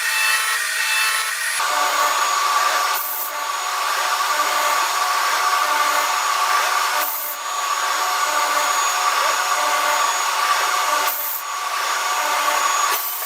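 Machine tool cutting or grinding metal: steady rasping noise with a held whine, its character changing abruptly several times.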